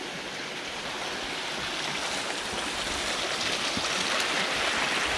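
Small rocky creek rushing and splashing over stones, growing steadily louder as it is approached from above.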